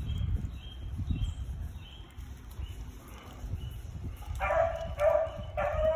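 Beagle hound baying on a rabbit's trail: a run of loud barks, about two a second, starting about four and a half seconds in.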